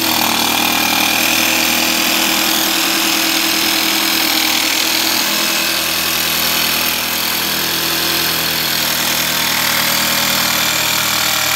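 Ryobi cordless jigsaw with a fine metal-cutting blade running steadily as it cuts through a plywood board, dipping slightly about seven seconds in.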